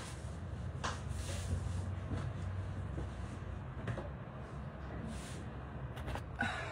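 Scattered light knocks and clatter of kitchen items being moved about, over a low steady hum. Near the end comes a louder knock and rustle as the phone that is recording is grabbed and handled.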